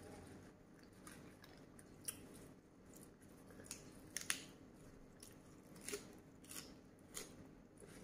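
Faint close-miked chewing of spicy squid and shrimp salad with fresh lettuce: soft wet mouth clicks and small crunches, spread out singly, a handful of them a little louder.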